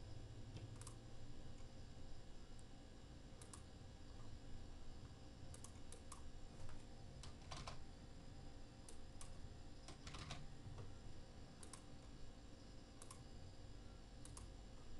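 Faint, irregular clicks of a computer keyboard and mouse as a short text label is typed and confirmed. A steady low hum lies underneath.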